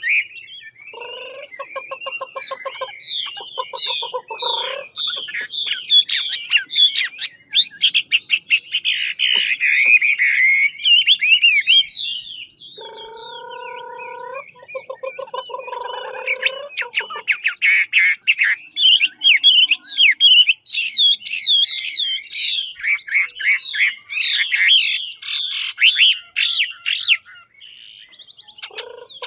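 Caged Chinese hwamei (Garrulax canorus) singing its loud, fast song of varied sliding whistled phrases. Lower, rapidly repeated notes come in underneath twice, about a second in and again around thirteen seconds in, and the song eases off briefly near the end.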